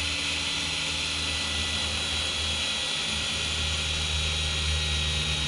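Cordless drill motor running steadily with a high whine, its battery running low on charge.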